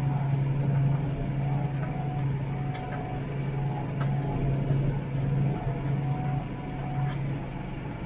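New Holland T7 tractor engine running steadily under load while pulling a five-furrow plough, heard as an even drone from inside the cab, with a few faint clicks and rattles.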